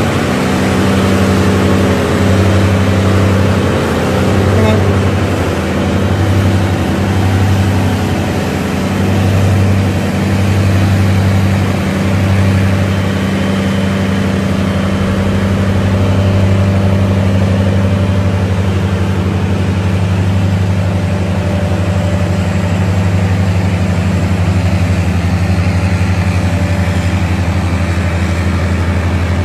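Diesel engines of Mack heavy-haul trucks running under load at low speed, a loud deep drone. The drone throbs for about the first twelve seconds, then evens out.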